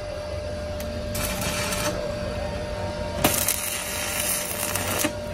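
Stick (arc) welding on a steel truck rim: the arc crackles and hisses as the electrode is struck. A short burst comes about a second in, then a longer run of nearly two seconds that starts with a sharp crack past the three-second mark. A steady hum sits underneath.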